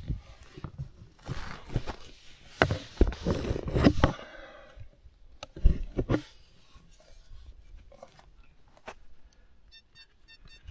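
Soil being dug for a metal-detector target: irregular crunching and scraping of dirt with a few knocks, loudest in the first half. Near the end comes a quick run of short, evenly spaced high electronic beeps, typical of a detector sounding on the target.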